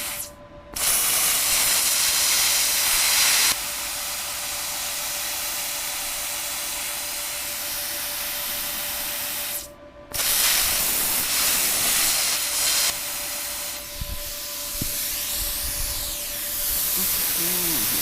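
Plasma cutter torch blowing compressed air in a steady hiss that cuts out briefly twice, louder just after each restart. The arc isn't cutting because the ground clamp isn't connected.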